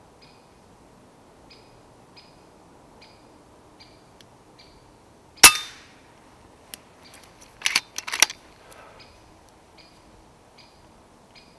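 A single shot from a .22 FX Impact PCP air rifle about five seconds in: a sharp crack with a short ringing tail. About two seconds later come a few quick metallic clicks as the sidelever is cycled back and forward to chamber another pellet.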